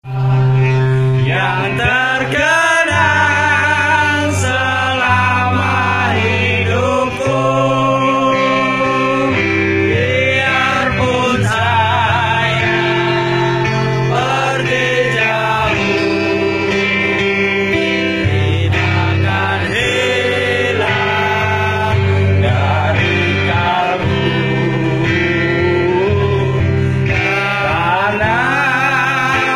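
Live amplified performance: a man singing a slow ballad with vibrato over acoustic guitar, with long held bass notes underneath, played through a PA system.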